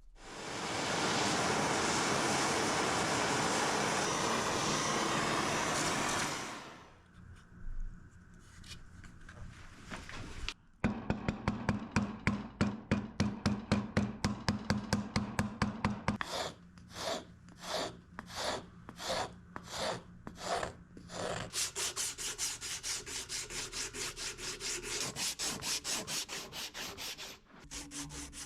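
A steady, loud rushing noise for about six seconds, then a hand tool scraping back and forth on the workpiece in rhythmic rasping strokes: fast at about five strokes a second, slower at about two a second, then fast again.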